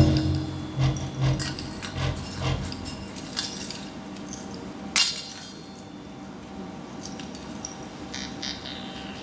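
Khomus (Yakut jaw harp) played softly: a few low twanging plucks fade out within the first three seconds, then a quiet stretch with sparse clicks and one sharp click about five seconds in.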